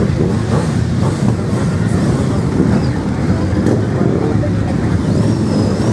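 A crowd of motorcycles running at once, many engines idling together in a loud, steady drone with revs rising and falling over one another.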